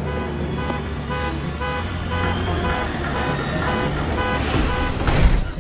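Car horn honked in repeated short blasts over the steady rumble of a car driving fast. A loud rushing whoosh comes about five seconds in.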